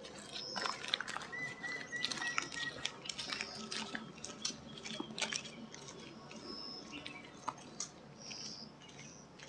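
Footsteps of several people walking on a wet road: light, irregular taps and crunches. Faint high bird chirps sound now and then, one a quick run of repeated notes.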